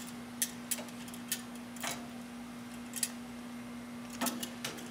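Metal tongs clicking against the cooking grate of an Oklahoma Joe's Highland smoker as chicken wings are flipped over: scattered sharp clicks, with a quick run of them near the end, over a faint steady hum.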